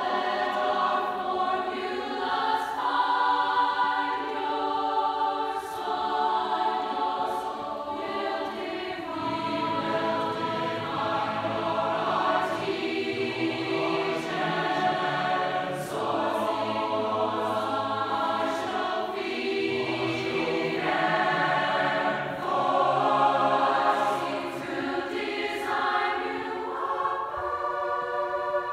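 Large mixed youth choir singing in harmony, holding chords that change every second or two, with low voices joining about nine seconds in.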